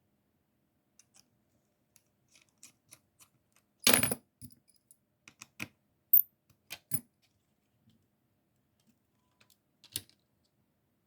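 Small hard parts of a radio kit's case and screws being handled: scattered light clicks and taps, with a louder clatter about four seconds in and a few sharper clicks after it.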